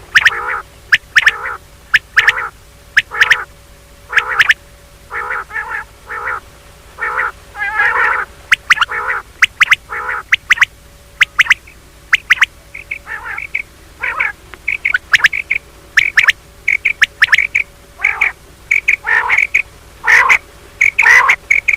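Female common quail giving short, sharp calls in quick irregular runs throughout, a mating call of the kind played to lure quail.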